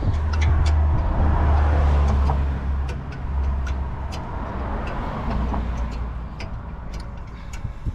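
A motor vehicle's engine and tyre noise, loudest for the first few seconds and then fading, with a few light clicks.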